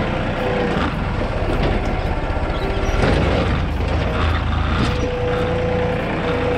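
Front-loader tractor engine running steadily close up, with a thin whine that comes and goes.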